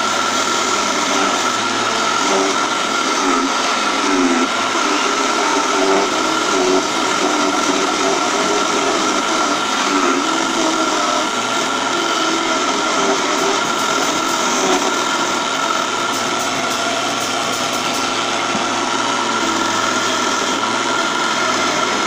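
Small benchtop wood lathe running steadily with a constant high whine, while a hand-held turning chisel cuts the spinning wooden blank.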